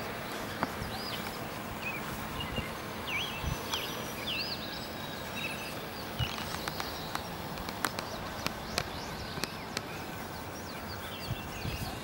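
Outdoor ambience: small birds chirping in short rising and falling notes over a steady hiss, with scattered light clicks and taps in the second half.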